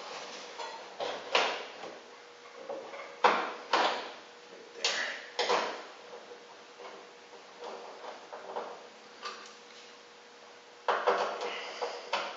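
Screws being driven into the lock mechanism inside a 1966 VW Beetle door: irregular metal clicks and scrapes from the tool and screw, about one stroke a second, with a quicker run of ticking near the end.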